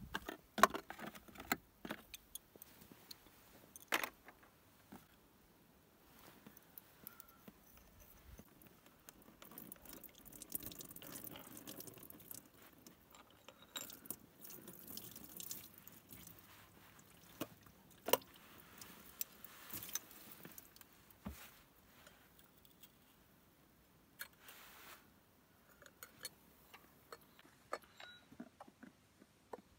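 Scattered small metal clinks, taps and rustles of hands and tools handling parts while a spin-on filter is worked loose and taken off a diesel tractor engine, with a few sharper clicks about half a second in and again around 4 and 18 seconds.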